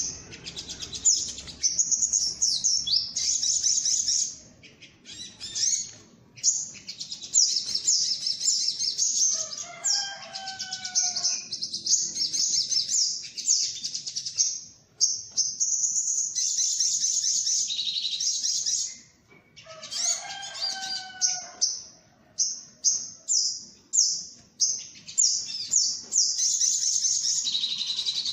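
Sunbird (sogok ontong) lure-call recording: rapid, high-pitched chirping trills in quick runs separated by short gaps. Twice, about a third and two thirds of the way through, a short run of lower whistled notes comes in under the chirps.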